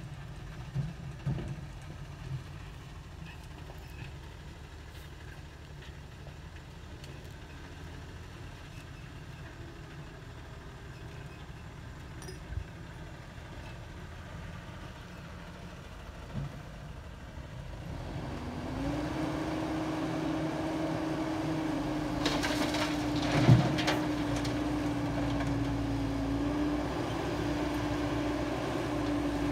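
Diesel engines of a Caterpillar hydraulic excavator and a dump truck running. About two-thirds of the way in the machinery gets louder and a steady whine sets in as the excavator works, and a sharp clunk comes a few seconds later.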